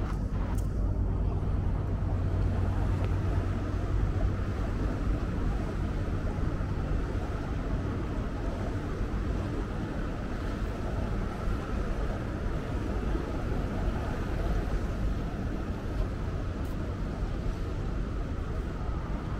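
Tour boat's engine running steadily with a low hum, over a constant wash of water and wind noise.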